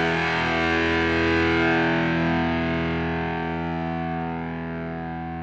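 Background music: a distorted electric guitar chord held and slowly fading away.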